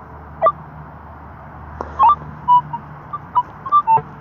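Metal detector beeping as a dug hole is checked for a target: a couple of quick rising chirps and a string of short electronic tones at varying pitches, close together in the second half.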